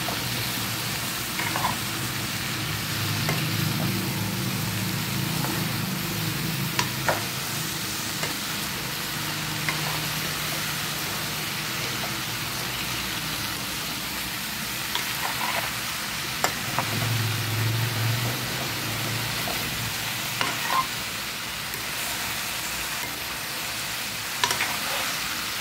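Vegetables frying over a low flame, stirred with a ladle in a hot pan: a steady sizzle, with the spoon scraping and clicking against the pan now and then.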